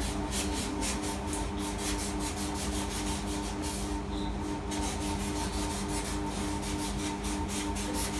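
A craft knife sawing through a white foam 'cork sheet' (polystyrene board) in quick, repeated scraping strokes, about four a second, that pause briefly around the middle.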